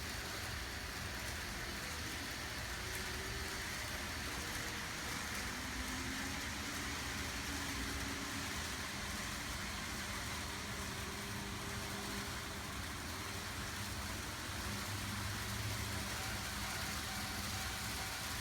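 N-gauge model trains running on the layout: a steady rolling rumble of wheels on track, with a faint motor hum that slowly shifts in pitch as the trains speed up and slow down.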